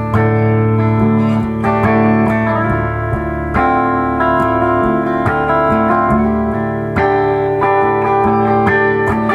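2013 Gretsch White Falcon G6136T hollow-body electric guitar with Filtertron pickups, played through an amplifier: picked notes and chords ringing out, changing every second or so.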